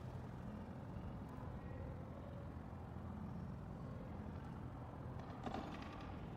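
A steady low hum, with a short burst of higher noise about five and a half seconds in.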